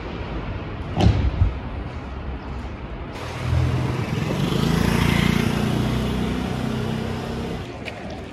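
Street traffic: a motor vehicle drives past, its engine hum swelling to its loudest about halfway through and fading near the end. A short knock about a second in.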